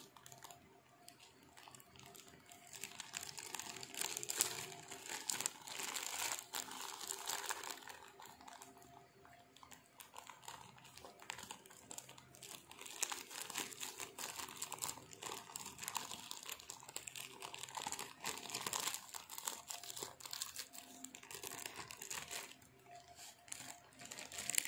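Plastic bag of golden granulated sugar crinkling as it is squeezed and tipped, with sugar grains pouring out onto boiled kumquats in a bowl: a quiet, irregular crackle that goes on throughout.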